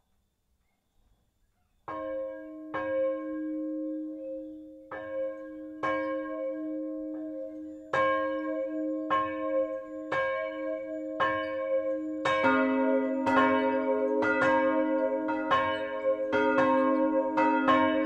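Swinging church bells ringing. After about two seconds of near silence, the smallest of three 1922 KID Jesenice bells starts striking about once a second. Around twelve seconds in, the larger, lower-pitched middle bell joins, and the two bells' strokes interleave more quickly.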